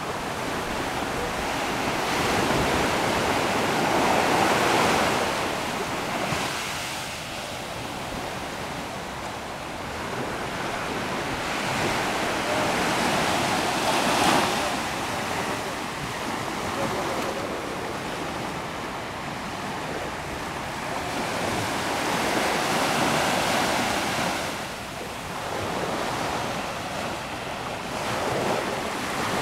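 Small waves breaking and washing up a sandy beach, a steady wash of surf that swells and fades every several seconds.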